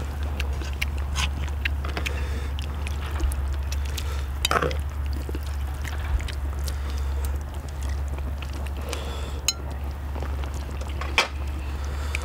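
Steel tongs and chopsticks clinking and tapping against metal plates and a large iron cooking pan as seafood ramyeon is served out and eaten: scattered light clicks and taps over a steady low hum.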